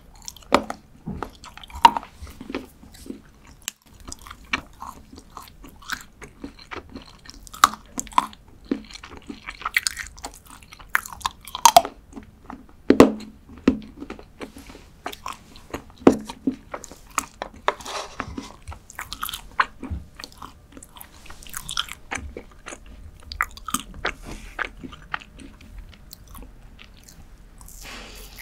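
Close-miked biting and chewing of a dark chocolate bar: irregular crisp snaps and crunches with wet mouth sounds.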